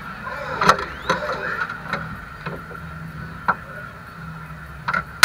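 Demolition-derby car's engine running low, with scattered sharp knocks and one loud bang near the end.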